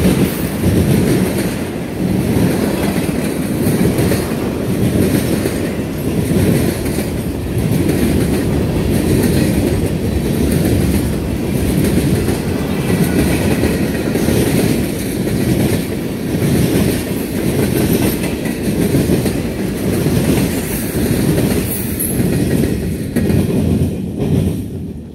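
Freight train's hopper and tank cars rolling past close by: a steady rumble with the steel wheels clattering over the rail joints. The noise drops off sharply near the end as the last car passes.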